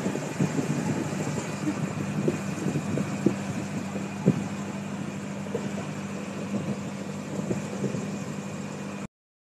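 A boat's engine running steadily with a constant drone over wind and water hiss, with a few light knocks along the way. The sound cuts off suddenly near the end.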